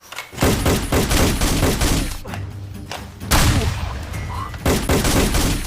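Volleys of rapid machine-gun-style gunfire sound effects, about six shots a second: a long burst of about two seconds, a short burst in the middle, and another burst near the end.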